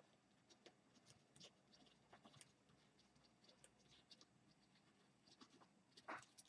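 Faint scratching of a pen writing words by hand on paper, in many short strokes.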